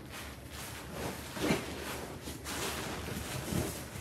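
Loose cat litter spread over a floor, shifting and scraping under bare feet as a person walks across it and sits down in it, in uneven soft swells.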